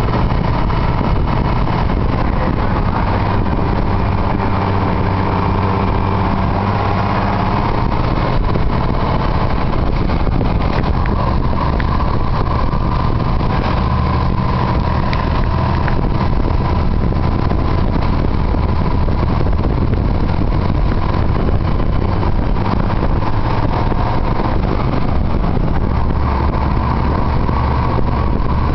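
Fire engine under way: its engine running steadily, mixed with road and wind noise from the open cab window.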